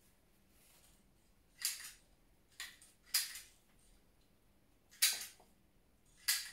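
Five sharp snips, irregularly spaced, as stems of pistachio greenery are cut with florist's shears.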